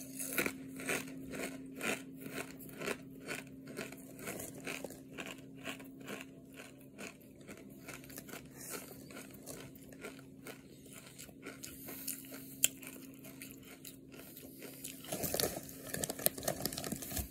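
Crisp kettle-cooked potato chips being chewed close to the microphone, about three crunches a second that thin out as the mouthful goes down. Near the end, a chip bag rustles and crinkles as a hand goes into it, over a faint steady low hum.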